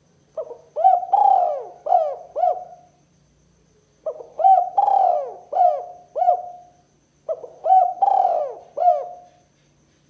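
Spotted dove cooing: three phrases of four or five coos each, with short pauses between the phrases.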